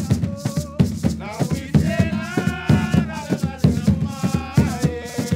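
Garifuna music: rope-tensioned hand drums beaten in a steady rhythm, with maracas rattling and voices singing over them.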